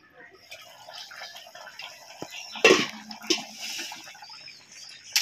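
Taro curry boiling hard in an open pan, bubbling and spitting. A little over two and a half seconds in, a sharp metal clank with a short ring comes as the aluminium lid is handled.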